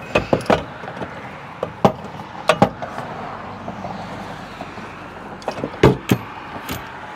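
Irregular sharp metal clanks and knocks, a few at a time, as steel parts of a tow truck's boom cylinder mount are handled and fitted back together, over a steady background noise.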